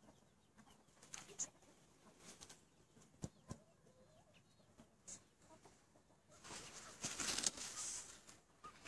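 Chickens clucking faintly in a yard, with a louder rustling noise for about a second and a half near the end.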